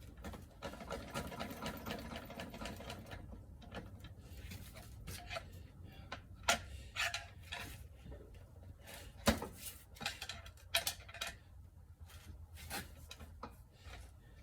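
Metal transmission parts clicking and clattering as they are worked loose by hand: a rapid rattle over the first few seconds, then scattered clinks and knocks, the sharpest about nine seconds in.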